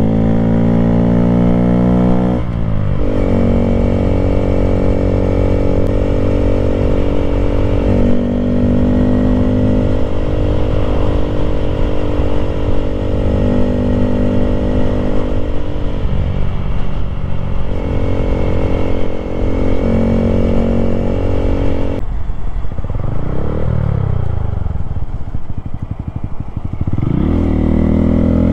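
Honda Grom's 125cc single-cylinder engine through an aftermarket exhaust, heard from the saddle while riding at steady cruising revs. Its pitch drops about two and a half seconds in, then about 22 seconds in the revs fall off and wander as the throttle closes, picking up again near the end.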